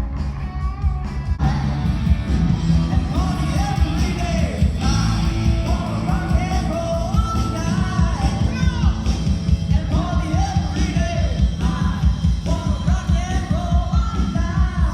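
Loud rock-style music with a singer's voice over a heavy bass beat.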